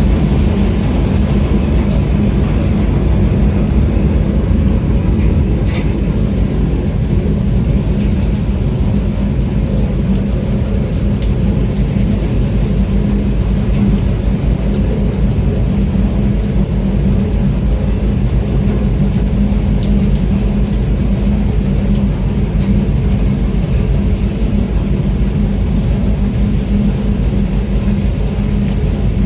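Boat engine running steadily in the rain: a constant low rumble under the even hiss of falling rain.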